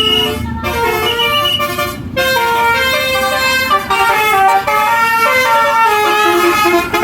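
A bus's basuri (telolet) musical horn playing a tune: held, several-note horn tones stepping up and down in pitch, with two short breaks in the first couple of seconds.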